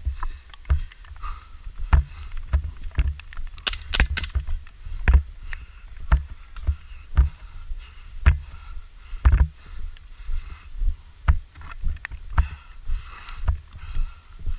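Handling and movement noise from a body-worn camera: a steady run of dull thumps, about one or two a second, mixed with clicks and rattles. There is a quick run of sharp cracks about four seconds in.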